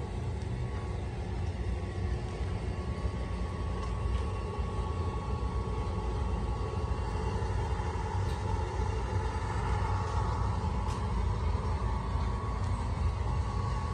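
Steady low rumble throughout, with a faint thin whine above it and a few faint clicks.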